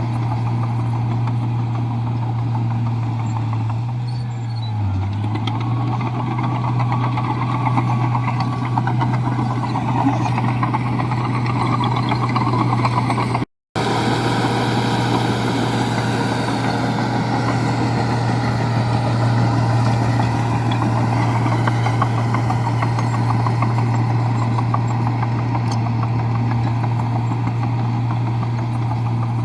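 Komatsu bulldozer's diesel engine running with a steady low drone. The sound cuts out for a split second about halfway through.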